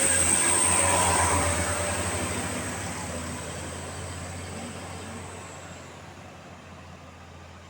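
A bus driving past, its engine and tyre noise loud at first and then fading steadily over about six seconds as it moves away.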